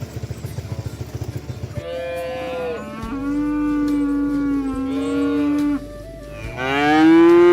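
Cattle mooing: one long low moo of about four seconds, then a second, louder and shorter moo near the end. Before the first moo, a low rapid rhythmic pulsing lasts for about the first two seconds.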